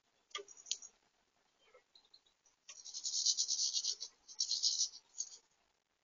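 A European goldfinch at a plastic seed-feeder tray: a few sharp clicks in the first second, then a rapid, high-pitched rattle for about two seconds, broken briefly just after the four-second mark.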